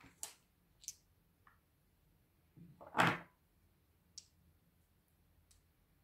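Small stones being handled on a tabletop: a few light clicks, and one louder knock about three seconds in as a stone is set down or picked up.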